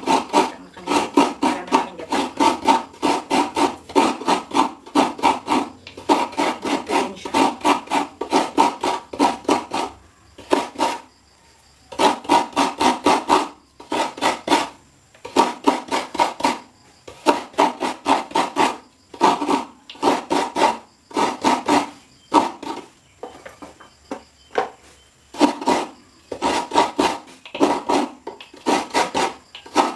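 Halved coconut scraped against a serrated coconut-grater blade, shredding the meat: quick, even rasping strokes about three a second, in runs broken by two short pauses.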